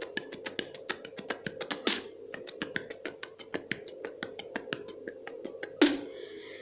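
Beatboxed mouth sound: a rapid, even run of small clicks made with the lips and mouth, about six a second, with a louder hit about two seconds in and another near the end.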